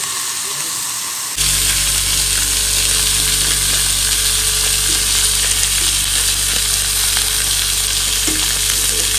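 Pork belly sizzling in its own fat on a hot flat iron griddle, being seared and charred to crisp the sides. About a second and a half in the sizzle gets louder and a steady low hum joins it.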